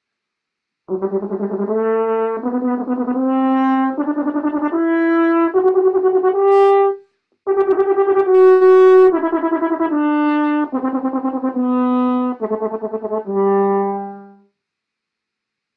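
French horn played with rapid multiple tonguing: fast repeated notes stepping up in pitch for about six seconds, a short breath, then stepping back down and ending on a low note.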